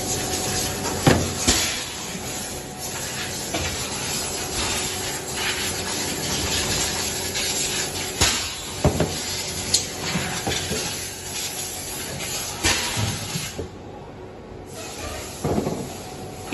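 Workshop noise: a steady hiss over a faint machine hum, with scattered knocks and clatters as slippers are handled on the worktable. The hiss drops away briefly near the end.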